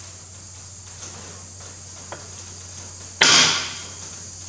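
Metal parts of a CAV rotary injection pump being handled on the bench: a few faint light clicks, then a sudden loud rasp about three seconds in that fades within about half a second, over a steady low hum.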